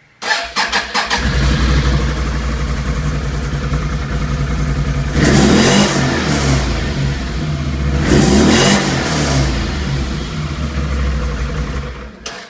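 2014 Can-Am Renegade 500 ATV's single-cylinder engine, fully stock, starting: the starter cranks briefly, the engine catches about a second in and idles, is revved twice, then drops off and stops near the end.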